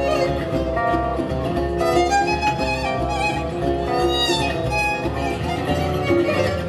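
Instrumental music led by a violin, with guitar accompaniment and a steady low beat.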